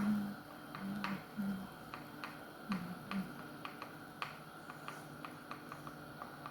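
Light clicking and tapping of a kitchen utensil, irregular at first and then about three or four clicks a second, with a few short low tones in the first half.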